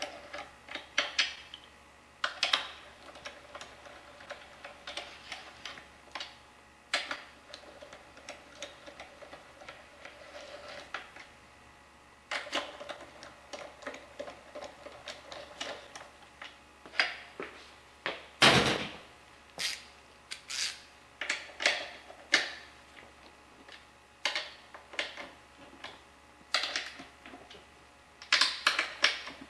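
Ratchet wrench clicking and a steel socket clinking as the bearing end plate bolts on a manual transmission case are run down, in irregular bursts of short ticks and knocks. One louder metal clunk comes about two-thirds of the way through.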